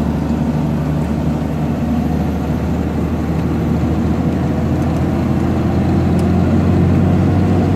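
Engine drone and road noise heard from inside a delivery truck's cab while cruising on a highway, steady throughout and growing a little louder after about five seconds.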